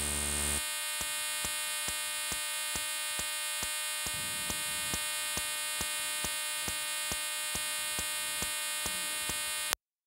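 Steady electronic buzz made of many even tones, with a faint tick a little over twice a second, from a smartphone's microphone submerged in river water: its audio is distorted into a hum instead of picking up the surroundings. It cuts off abruptly just before the end.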